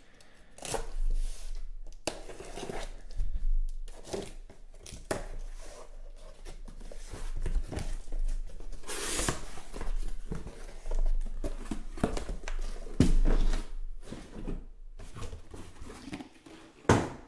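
Utility knife slicing through packing tape on a cardboard case, then cardboard flaps scraping and card boxes being pulled out and set down one after another.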